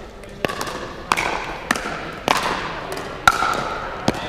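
Pickleball rally: sharp pops of paddles hitting the plastic ball and the ball bouncing on the hard court floor, about six of them at uneven gaps of half a second to a second, each echoing in the big hall.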